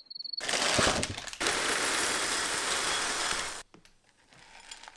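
A plastic protein shaker bottle holding milk and protein powder is shaken hard and loudly for about three seconds, then stops suddenly. Near the end comes a faint pouring of the shake onto cereal in a bowl.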